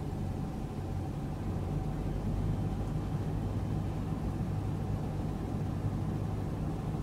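Steady low hum of a car idling, heard from inside the cabin.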